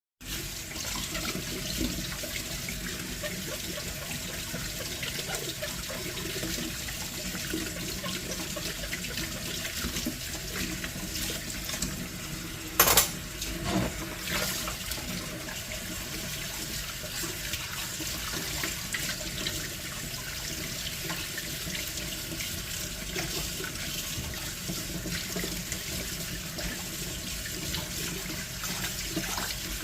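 Tap water running steadily into a sink while things are washed. A sharp knock about thirteen seconds in, with a smaller one a second later.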